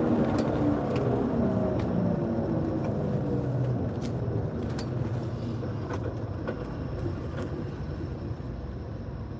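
Engine and road noise inside a lifted Jeep on 40-inch tires while driving. The engine note falls and the noise gradually eases as the Jeep slows.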